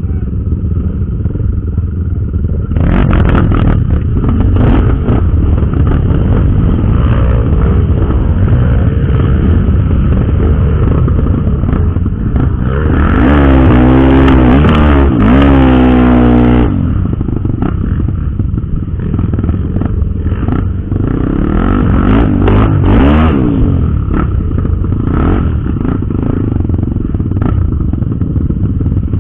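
Trail motorcycle engine running under way, with knocks and rattles from the bike over rough ground. From about 13 seconds in, the engine revs up and down hard for a few seconds, the loudest part.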